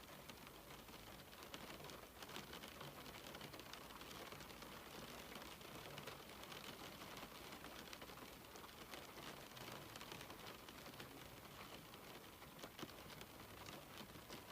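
Faint rain on a window: a steady hiss dotted with many small, scattered taps of drops.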